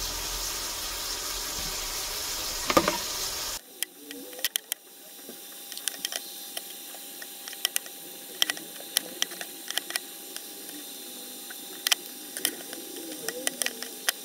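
Tap water running steadily, with a knock about three seconds in, then cutting off abruptly; after that, a quieter stretch of scattered light clicks and taps from handling.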